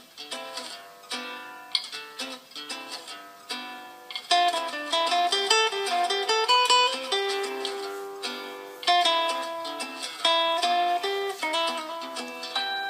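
Samsung Galaxy J1 Ace ringtone playing: a melody of quick, separate notes that starts just after a short pause at the beginning.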